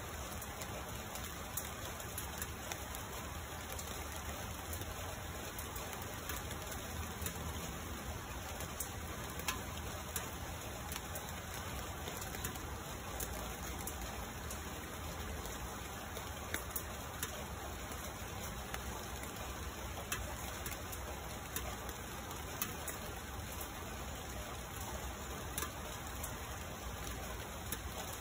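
Steady rain falling: an even hiss, broken by irregular sharp ticks of single drops landing close by.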